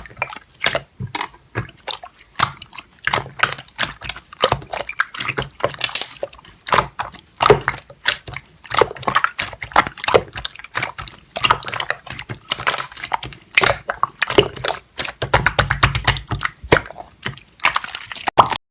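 Slime being squeezed and poked by hand: a dense, irregular run of wet clicks, pops and squelches, several a second.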